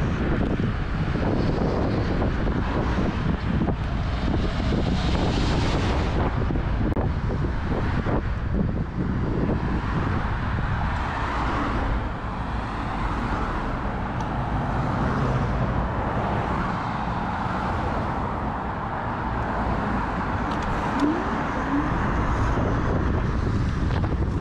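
Steady wind and road noise on a GoPro's microphone during an electric-scooter ride, with car traffic around; it eases off a little about halfway through.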